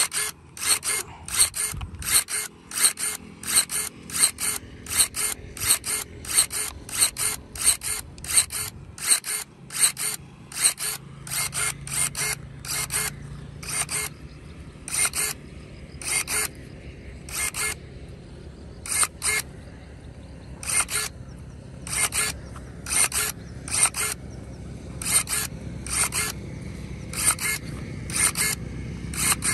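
Electric pruning shears snapping shut again and again as they cut thin green branches: a quick, sharp mechanical clack about once or twice a second, with a few short pauses between runs of cuts.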